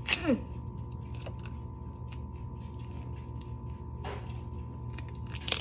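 Slime being handled and squished in the hands, making scattered small clicks and crackles over a steady low hum, with a short falling tone just after the start.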